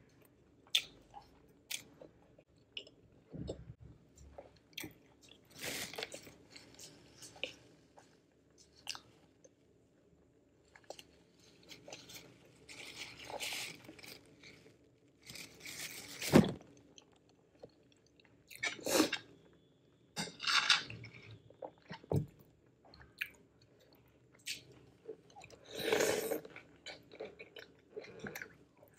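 A person chewing and crunching food in irregular bursts with quiet pauses between. Near the end a forkful of cucumber salad goes into the mouth.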